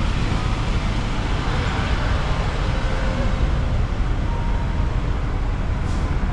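Studio Tour tram rolling along, heard from on board: a steady low rumble of the vehicle and its road noise.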